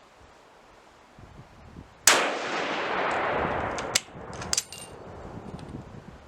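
A single shot from a MAS 36 bolt-action rifle in 7.5 French, about two seconds in, its report ringing out and dying away over about two seconds. A few sharp metallic clicks follow.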